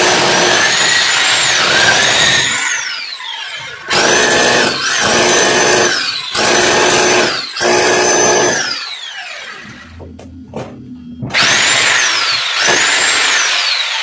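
Electric drill boring into the wall in about six bursts. Its motor whine rises as the trigger is squeezed and falls away each time it is let go, with a longer pause before the last two bursts.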